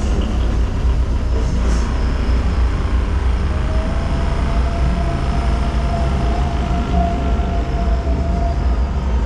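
Steady deep rumble of a moving amusement-ride tram carriage. A thin steady hum joins a few seconds in and fades near the end.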